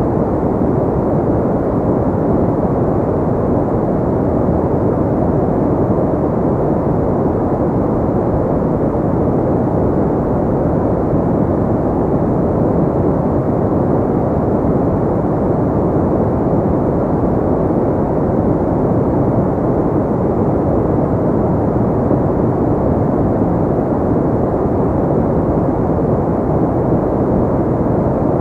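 Steady, unchanging deep rushing noise from a sleep-and-relaxation white noise track, full in the low and middle range with little treble, like a soft rumble rather than a bright hiss.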